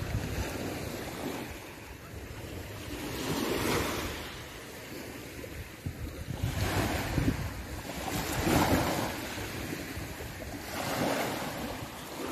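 Small waves breaking and washing up a pebble beach, the surf swelling and fading every two to three seconds, with wind buffeting the microphone underneath.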